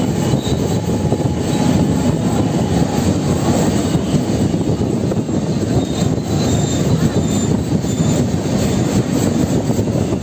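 A train running, a loud and steady rumbling noise.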